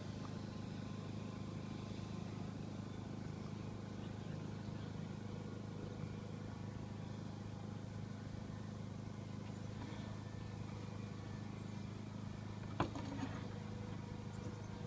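Electric motors and propellers of a four-engine RC Super Constellation model running steadily as a low, even drone. There is one sharp click near the end.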